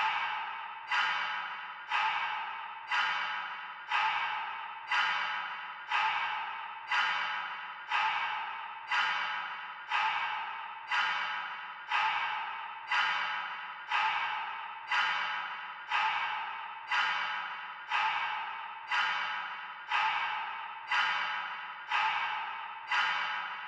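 Dark ambient music: a sharp percussive hit repeating steadily about once a second, each one ringing out and fading away before the next.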